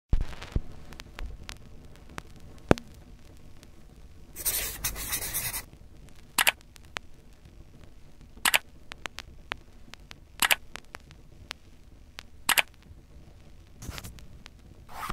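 Editing sound effects for an animated title sequence. A rustling swish lasts about a second, starting about four and a half seconds in. After it, sharp clicks come about every two seconds as lines of text pop onto the screen, with a short swish near the end, and faint ticks run throughout.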